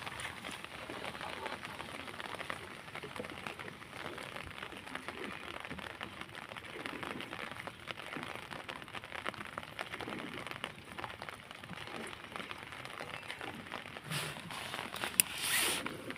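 Light rain pattering steadily, with fine ticking throughout. Near the end comes a louder rustle with one sharp knock.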